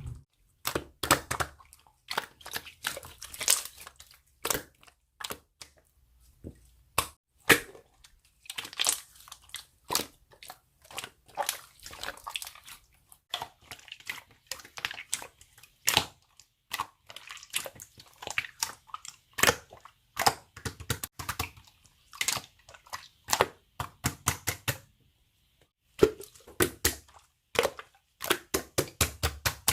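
Slime being squeezed and pressed by hand, making irregular pops and clicks, in quick runs near the end.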